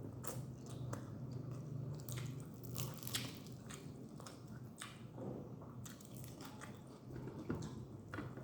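Close-miked eating of instant noodles, egg and rice: chewing and biting with irregular wet clicks and smacks of the mouth. A low hum sits under the first few seconds.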